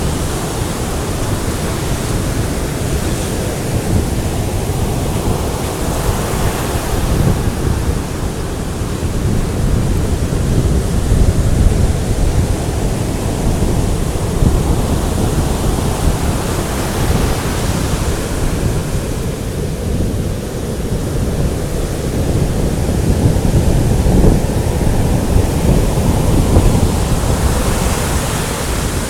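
Heavy storm surf from the approach of Hurricane Sandy breaking and washing on the beach, swelling up roughly every ten seconds, under strong wind buffeting the microphone with a constant low rumble.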